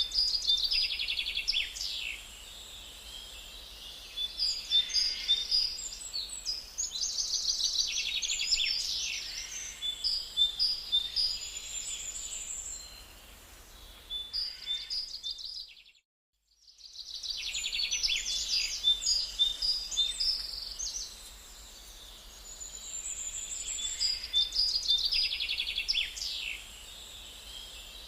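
Small songbirds singing, with repeated phrases of fast trills and chirps every few seconds over a faint low hum. The sound cuts out briefly about halfway through.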